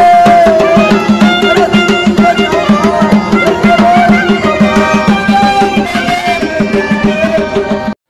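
Folk-style instrumental music: a hand drum beats a steady rhythm under a melody that slides between notes.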